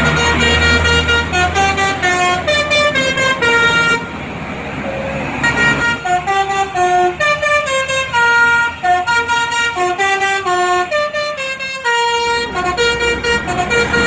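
Tour bus's 'telolet' musical air horn playing a quick tune of short stepped notes over the bus engine's rumble. The tune breaks off about four seconds in for a couple of seconds of plain noise, then plays on.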